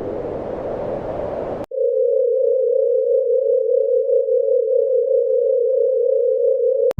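Space sound effect clips edited back to back. A noisy rushing rumble cuts off about one and a half seconds in, then a steady, slightly wavering electronic tone runs for about five seconds and stops abruptly.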